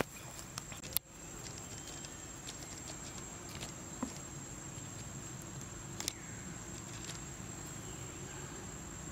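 Outdoor ambience: a steady high-pitched insect drone over a low rumble, with a few soft clicks and a sharp click about a second in.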